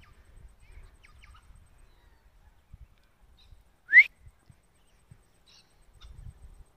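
One short, sharp whistle about four seconds in, rising quickly in pitch, close and loud; otherwise only a faint low rumble.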